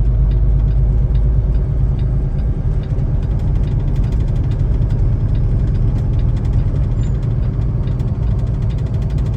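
Semi truck in a low gear on a downhill crawl, heard from inside the cab: a steady low engine and road rumble with a rapid, light clatter from the snow chains on the drive tires.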